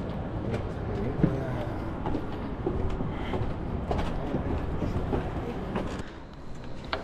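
Steady low rumble with scattered knocks and clanks: footsteps and hands on a construction-site stair tower as someone climbs down it. The sound quietens slightly near the end.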